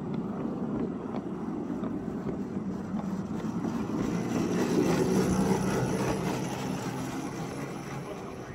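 Small battery-electric ride-on locomotive running past on its track: the hum of its electric traction motor and sprocket chain drive with the wheels rolling on the rails. It swells to its loudest about halfway through, then fades as it draws away.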